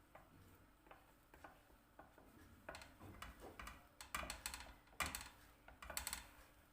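Light clicks and taps of kitchen items being handled, a scattered series that grows louder and more frequent about halfway through.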